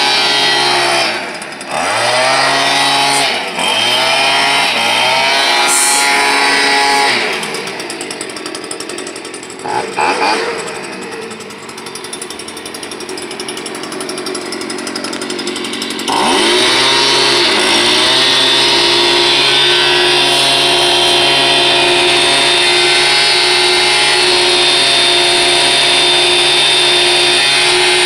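Stihl BG 86 leaf blower's two-stroke engine being test-run. It runs at high speed and drops back and recovers twice in the first few seconds, runs lower and quieter for several seconds, then revs up about halfway through and holds steady at full speed.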